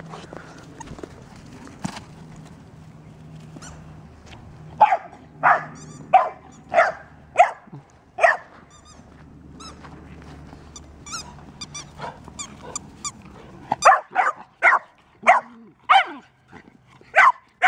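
A dog barking in play: a run of about six sharp barks, roughly two-thirds of a second apart, starting about five seconds in, then a quieter spell, and another run of sharp barks from about fourteen seconds in.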